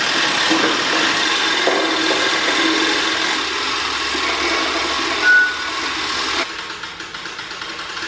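Hand-cranked winch of a Genie Superlift material lift clicking steadily as it raises a wooden beam, with a brief high squeak about five seconds in.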